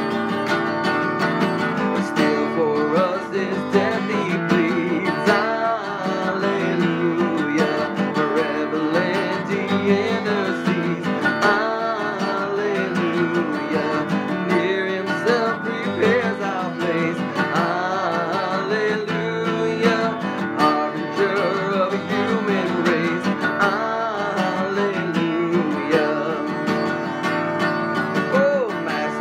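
Acoustic guitar playing hymn music, a steady instrumental passage between sung verses.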